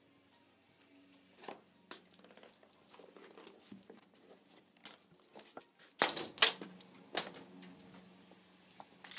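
Camera handling noise, footsteps and small clicks, then a front door opening and shutting with a few loud sharp knocks about six seconds in.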